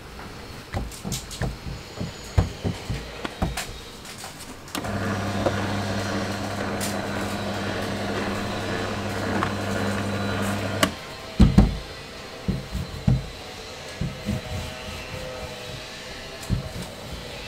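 Electric dough-sheeting machine's motor humming steadily as dough passes through its steel rollers, starting about five seconds in and stopping about six seconds later. Light taps and knocks of hands working dough on a stainless steel counter come before and after it, with a couple of louder thumps just after the motor stops.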